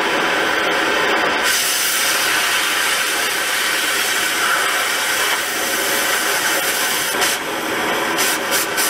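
Oxy-fuel cutting torch running with a loud, steady hiss while cutting through rusted steel hardware on a truck's leaf spring. The hiss turns harsher about a second and a half in as the cutting oxygen comes on, and drops back briefly a few times near the end.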